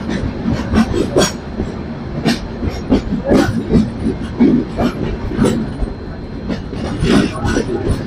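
Passenger train running on the rails: an LHB coach's wheels clatter over rail joints in an irregular series of knocks above a steady rumble.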